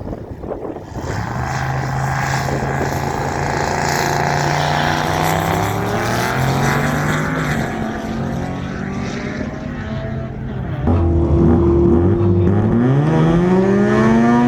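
Drag-race car engines running at the strip, with some pitches gliding up as cars pull away. About eleven seconds in a louder engine comes in close and revs up, its pitch climbing steeply near the end.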